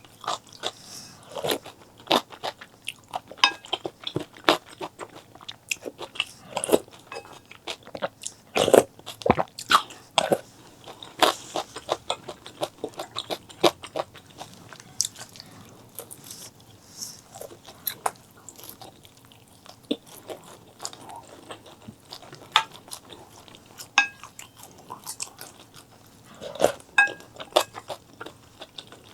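Close-miked eating sounds: a person chewing and biting food, with many irregular crunchy clicks and smacks.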